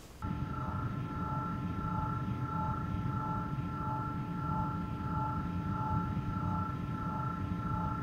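Sci-fi hovering-craft sound effect: a steady electronic hum of several held tones over a low rumble, with a slow regular pulse, starting abruptly just after the beginning.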